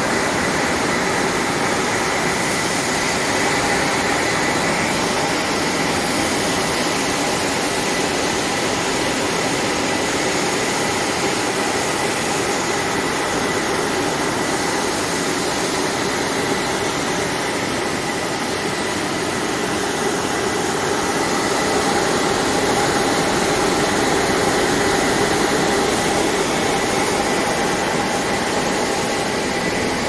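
Industrial bubble washing machine for vegetables running: a steady, loud rushing noise with a thin, steady high whine.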